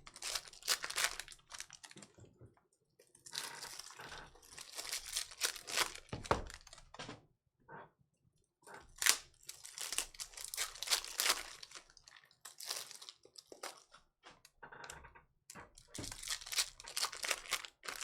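Foil trading-card pack wrappers being torn open and crinkled by hand, in several bursts of crackling rustle with short pauses between.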